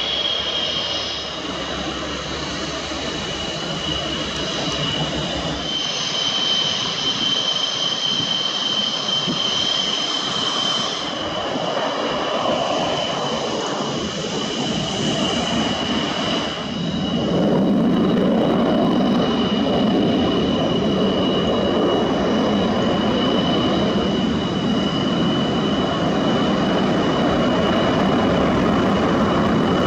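MiG-29 jet engines, their RD-33 turbofans running with a steady high-pitched whine; a little past halfway the roar swells sharply louder as the engines are throttled up and holds there.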